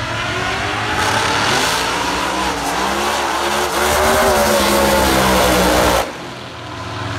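Drag race car engine at full throttle down the strip, its pitch climbing, dipping about two and a half seconds in, then climbing again before easing off. The sound cuts off abruptly about six seconds in, leaving a quieter background.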